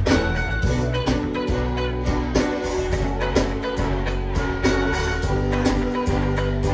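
Amplified live band music playing without vocals: a steady drum beat, heavy bass, and guitar.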